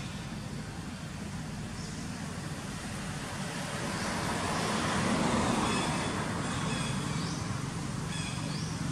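Outdoor traffic noise with a road vehicle passing, swelling to its loudest about halfway through and then easing off, with a few faint high chirps near the end.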